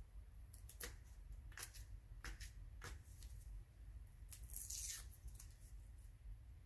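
Faint hand-work on a firework's wrapping: a few light clicks and scrapes, then a brief crinkling tear about halfway through as the foil-and-paper wrap around the rocket's shell is pried apart with a small plastic tool.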